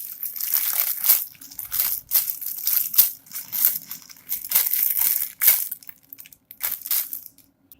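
Crinkling and rustling as a foam squishy toy is handled and squeezed up close, in short strokes about one or two a second.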